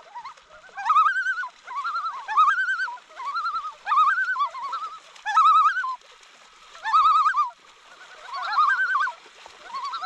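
Common loons giving their quavering tremolo call again and again, in short bouts of about half a second to a second, with a longer pause midway.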